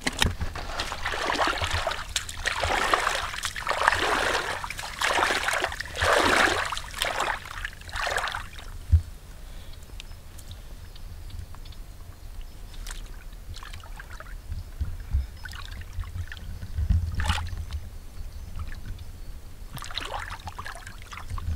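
Hands sloshing and splashing through a shallow puddle of muddy water while groping for fish: a run of loud swishes in the first eight seconds or so, then quieter wet sounds with scattered knocks, and more splashing near the end.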